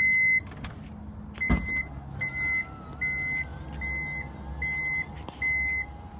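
2016 Toyota Kluger's power tailgate opening by itself: a clunk about a second and a half in as the latch lets go, then the faint whine of the electric drive rising and holding steady as the hatch lifts. The tailgate's warning beeper sounds throughout, a steady beep repeating a little faster than once a second.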